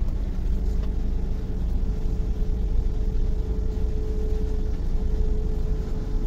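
Car engine and tyre rumble heard from inside the cabin as the car creeps slowly forward, a steady low rumble.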